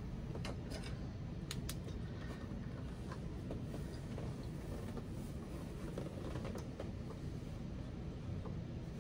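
Faint, scattered clicks of small plastic Lego pieces being handled and pressed together, over a steady low background rumble.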